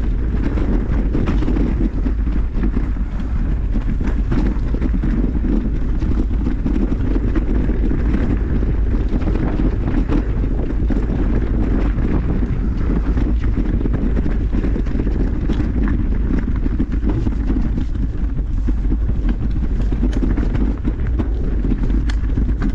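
Mountain bike ride over rough trail: a steady rush of wind over the camera microphone, with many small clicks and knocks from the bike clattering over the ground.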